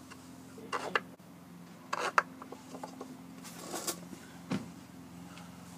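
Wooden box being shifted and pressed onto a plywood base by hand: a few short wood-on-wood scrapes and knocks, over a faint steady hum.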